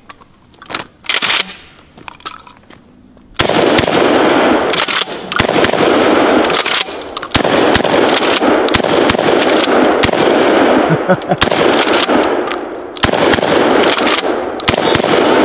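DP-12 12-gauge double-barrel pump shotgun firing birdshot in a rapid string of shots, beginning about three and a half seconds in, each shot trailed by its echo. Before the shooting there are only a few faint handling clicks.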